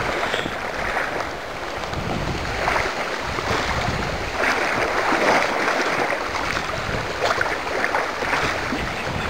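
Wind buffeting the microphone in uneven gusts over the rushing flow of the river.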